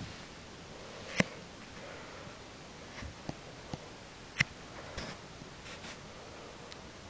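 A Jack Russell terrier snuffling as she plays with a toy ball. Two sharp clicks come about a second in and just past the middle, with a few softer knocks between them.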